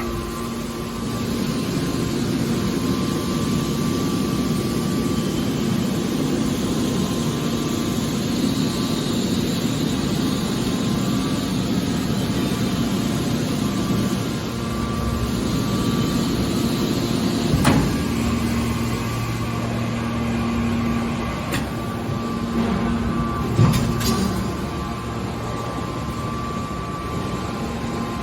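Hydraulic scrap car baler running with a steady machine hum. A sharp metallic knock comes about two-thirds of the way in, and another about six seconds later.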